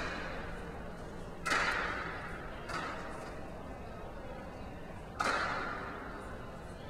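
Three loud bangs about a second and a half, then two and a half seconds apart, each echoing through a large hall over a steady low hum: heavy crates and road cases being handled while equipment is packed up.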